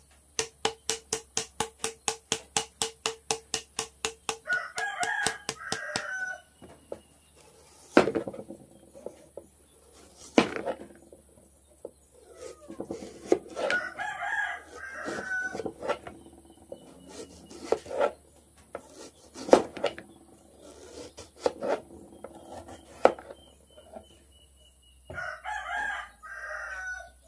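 A rooster crowing three times, each crow about two seconds long, with sharp knocks of a knife cutting lemons on a plastic tray in between. It opens with a fast, even run of clicks, about five a second, for some four seconds.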